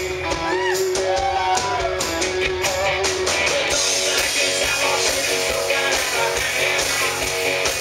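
A live rock band playing, with electric guitars and a drum kit. Bending notes sound over the first three seconds, then the whole band comes in louder and brighter about halfway through.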